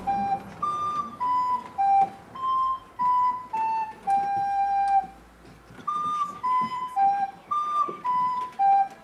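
A soprano recorder playing a simple melody in short, separate notes, with one longer held note in the middle followed by a brief pause before the tune goes on.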